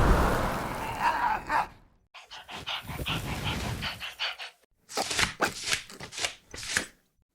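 Dog sounds in short clips cut abruptly one after another, including a run of quick, rhythmic breaths in the middle.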